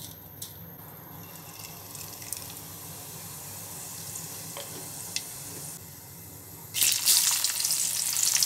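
A faint steady hiss with a few light ticks, then about seven seconds in a sudden loud sizzle as sliced onions hit the hot oil in a steel karahi and start frying.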